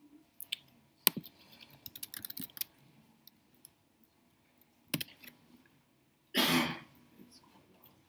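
Laptop keyboard typing and sharp clicks, a few single clicks and a short run of key taps, with one louder half-second burst of noise about six and a half seconds in.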